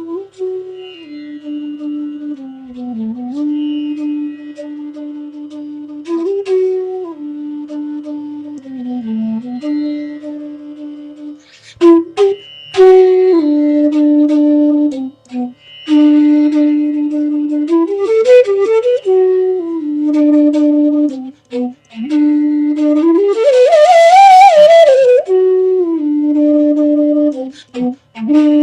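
Bansuri (North Indian bamboo flute) playing a melody of long held notes joined by sliding bends in pitch. It is softer in the first half and louder from about halfway, with short breaks for breath, and near the end climbs to higher, breathier notes with a wavering vibrato.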